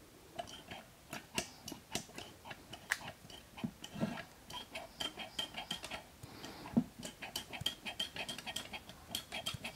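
Light, irregular metallic clicking and ticking from the wastegate arm of a stock Audi 2.9 TFSI turbocharger as it is wiggled up and down by hand. The clicks come from play in the loose wastegate stem, which is not a good thing and makes these turbos rattle when bolted to the car.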